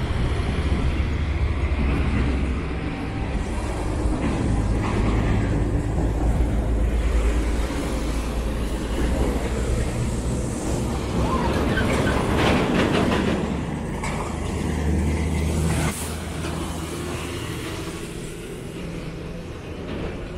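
Heavy road traffic: truck engines rumbling steadily, with a tanker lorry driving past close by, loudest about two-thirds of the way through.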